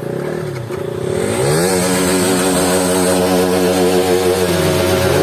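KTM RC 200 motorcycle's single-cylinder engine revving for its exhaust note. The pitch blips up and down, climbs steeply about a second in, holds high, then dips briefly near the end and climbs again.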